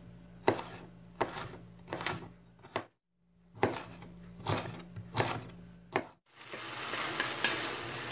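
A knife chopping vegetables on a wooden cutting board: single knocks about one per 0.7 s, with a low steady hum under them, in two short runs broken by a brief silence. About six seconds in, it gives way to a steady sizzle with a few scrapes as vegetables are stirred in a frying pan with a wooden spatula.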